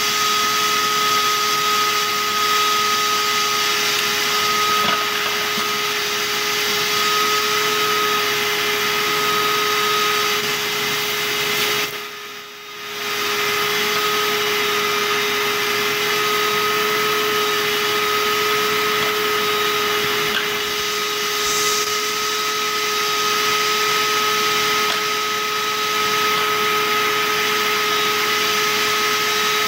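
Mini hang-up shop vac running steadily, its motor giving a constant whine over a rushing hiss of air as it sucks sawdust off the floor through its hose and a bucket cyclone separator. The level dips briefly about twelve seconds in, then comes back to the same steady run.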